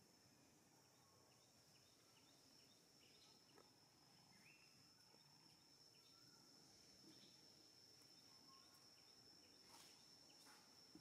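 Near silence: faint outdoor ambience with a steady high-pitched insect drone and a few faint, scattered bird chirps.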